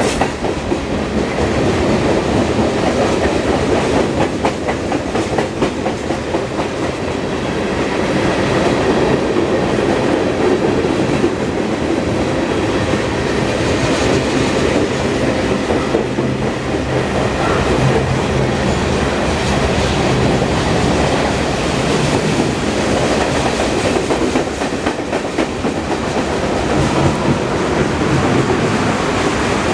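Freight cars of a long mixed freight train rolling past with a steady rumble, their wheels clicking over the rail joints.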